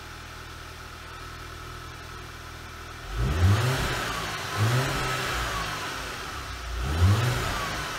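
Audi A4 engine idling through its twin exhaust tips, then revved three times in quick blips, each rising and falling in pitch, about three, four and a half and seven seconds in.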